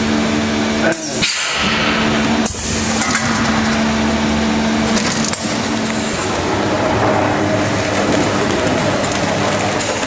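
Vertical form-fill-seal bagging machine running: a steady hum under a dense noisy clatter, broken by a few abrupt cuts in the sound.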